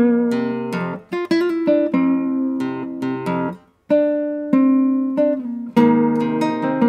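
Solo nylon-string classical guitar played fingerstyle: plucked melody notes over chords. There is a brief pause about four seconds in before the playing resumes.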